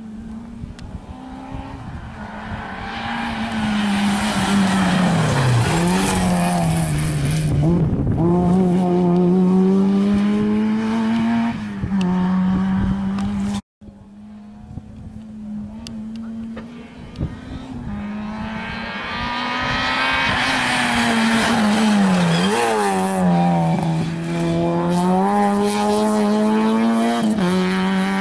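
Two rally cars pass at full attack, one after the other. Each engine note builds as the car approaches, dips through the bend, then climbs again as the car accelerates away at high revs.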